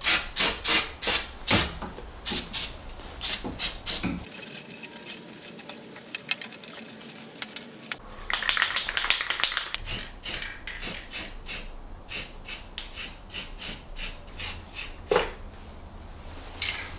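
Aerosol spray-paint can being shaken, its mixing ball rattling in quick metallic clicks about three times a second, with a hiss of spray about eight seconds in.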